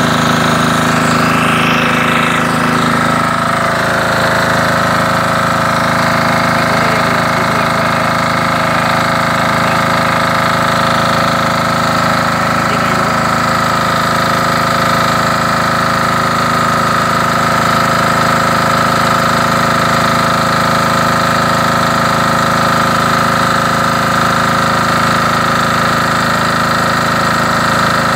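Launtop 10 hp air-cooled single-cylinder diesel engine running a water pump at a steady speed, its note unchanging throughout.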